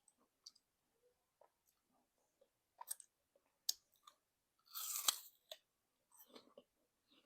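Eating apple slices with peanut butter close to the microphone: a couple of sharp crunches about three seconds in, a loud crisp bite about five seconds in, then steady chewing near the end.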